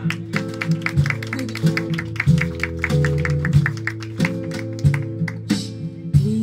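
Acoustic guitar strumming chords with percussion keeping a steady beat: an instrumental passage of a live song, with no singing.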